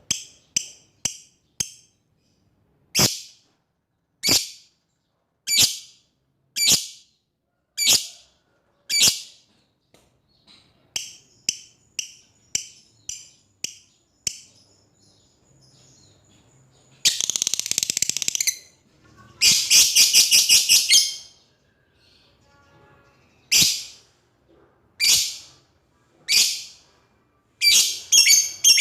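Lovebird calling shrilly: sharp single calls repeated about once a second, broken in the middle and again near the end by long fast chattering runs, the 'ngekek panjang' long chatter used to call out to a rival bird.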